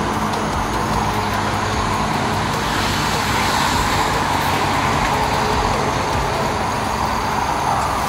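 Highway traffic: a steady, continuous rush of passing vehicles.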